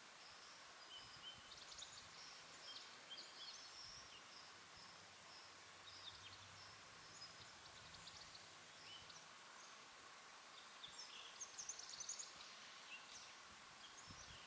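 Near silence: quiet outdoor ambience with faint, high-pitched chirps in the background, repeating about twice a second through the first half, and a short cluster of sharper chirps about eleven seconds in.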